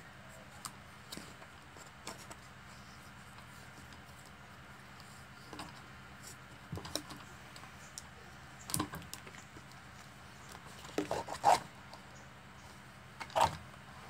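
Electrical tape being pulled off its roll and wound around a ceiling fan's wires: scattered soft rustles and clicks of handling, louder about eleven seconds in and again about a second before the end.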